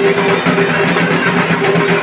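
Loud music with rapid percussion over held tones.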